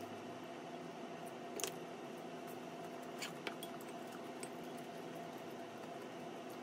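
A few light clicks of wooden chopsticks and a wooden spoon against a ceramic plate as noodles are served, the sharpest about one and a half seconds in and a few softer ones a couple of seconds later. Under them runs a steady room hum.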